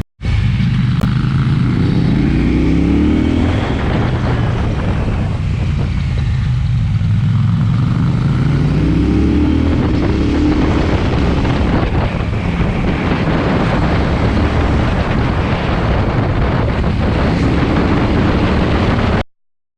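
KTM 790 Duke's parallel-twin engine through an SC-Project exhaust, under way: the engine note rises as it accelerates, falls away, rises again, then runs on steadily mixed with wind and road noise. The sound cuts off suddenly near the end.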